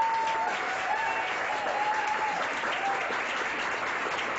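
Audience applauding steadily, with long whooping cheers over it in the first three seconds.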